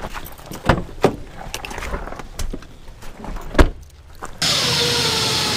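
Fishing gear being loaded into a car: a few knocks and thumps, the loudest about three and a half seconds in. Then, a little later, a steady hum with a faint falling tone starts abruptly.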